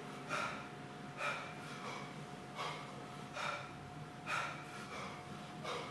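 A man breathing hard from exertion during kettlebell snatches: short, forceful breaths, about one a second, in time with the lifts.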